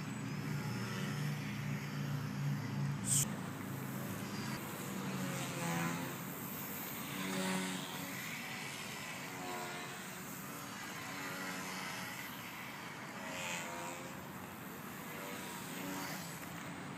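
Propeller motor of a small radio-controlled model aircraft running, a steady hum at first, then a whine that rises and falls in pitch several times as it throttles and flies past.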